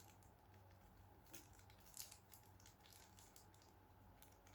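Near silence with a low hum, broken by a few faint clicks and rustles of packaging being handled, the clearest about one and a half and two seconds in.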